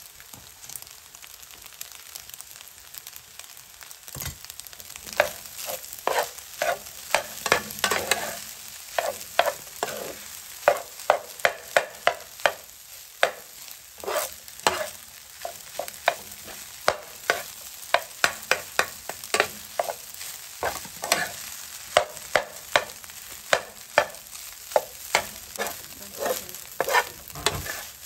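Fried rice sizzling in a nonstick skillet as a metal spatula stirs it. From about four seconds in, the spatula scrapes and taps against the pan over and over, about twice a second.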